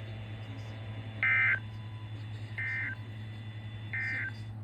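Emergency Alert System End-of-Message signal: three short, identical bursts of shrill data tones about a second apart, marking the end of the alert. The first burst is louder than the other two, and a steady low hum runs underneath.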